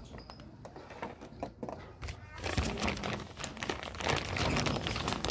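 A thin clear plastic bag crinkling as it is handled in the fingers, with scattered crackles at first and denser, louder crinkling from about halfway through.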